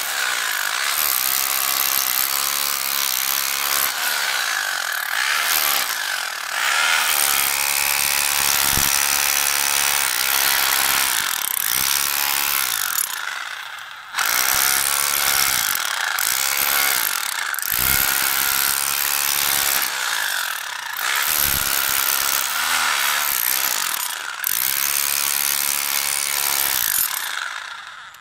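Pumpkin PTT2-26DFR rotary hammer in chisel mode, hammering its chisel bit into concrete and chipping it away. It runs in long bursts, easing off briefly about halfway through and stopping near the end.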